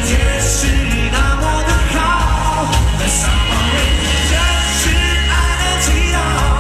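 A male singer singing a pop song into a handheld microphone over loud backing music with a steady heavy bass, heard through the venue's loudspeakers.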